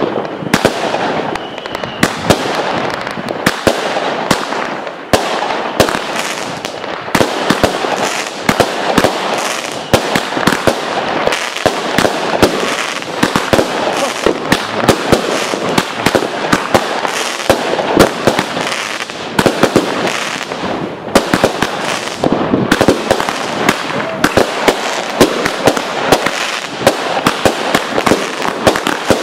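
Fireworks going off in a dense, continuous barrage: rapid bangs from aerial shells and rockets over constant crackling, with no break.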